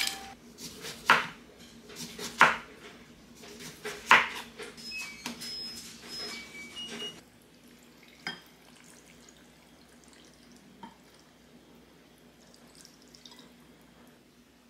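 Kitchen clatter of containers and utensils knocking and clinking against a glass mixing bowl, a few clinks ringing briefly, over the first seven seconds or so. After that it goes quiet, with only the faint sound of soy-sauce marinade being poured from a small stainless saucepan into the bowl.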